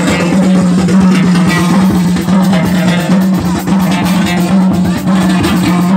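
Loud music with a fast, dense beat over a steady low held note.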